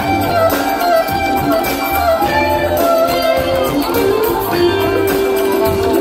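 Live jam band playing through a festival sound system, recorded from the crowd: a gliding lead melody over pulsing bass and drums, with a long held note near the end.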